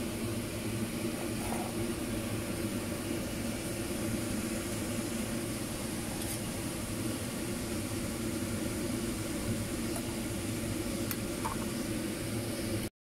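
A fan motor running with a steady hum and whoosh, with a couple of faint clicks.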